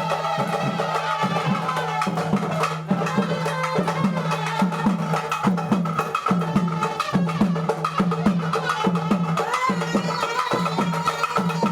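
Indian folk-style music with fast, steady hand-drum percussion over a steady low tone.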